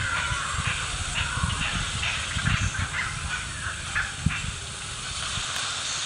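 Outdoor ambience: wind rumbling on the microphone over a steady hiss, with many short bird chirps in the background and a brief thump a little after four seconds in.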